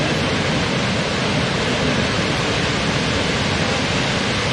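A large waterfall pouring: a steady, even rush of falling water.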